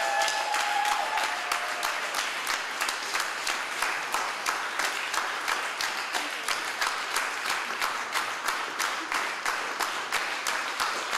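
Audience applause: many people clapping, falling into steady rhythmic clapping in unison after the first couple of seconds.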